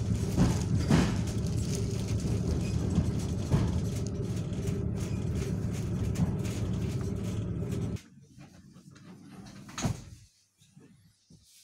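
Interior noise of an ED9M electric multiple-unit car: a steady rumble with a low hum that cuts off abruptly about eight seconds in, followed by a single sharp knock.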